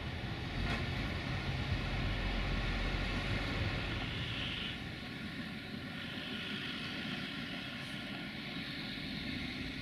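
A lorry driving past on the road, a steady rumble of engine and tyre noise with a hiss over it.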